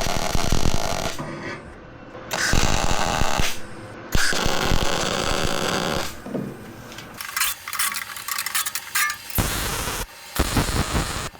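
Handheld power tool running in several short bursts of a second or two, with brief pauses between, while a junction box is fitted to a machine frame.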